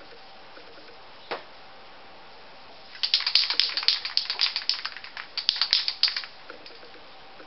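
Aerosol spray paint can being shaken, its mixing ball rattling in quick sharp clicks, in two bouts starting about three seconds in. A single click comes earlier.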